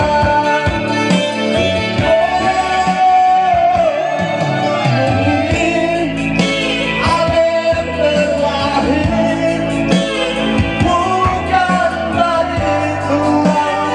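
A man singing into a handheld microphone over instrumental accompaniment, holding long notes that waver in pitch.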